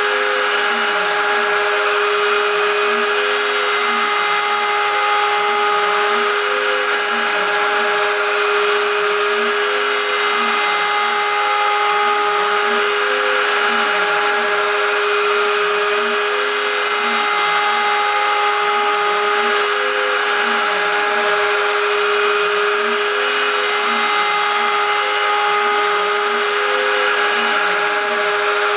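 CNC router spindle running steadily with a high whine while its end mill cuts 6061 aluminium along an adaptive toolpath. Beneath the whine, a lower tone sweeps up and down about once a second as the machine moves through its repeating cutting passes.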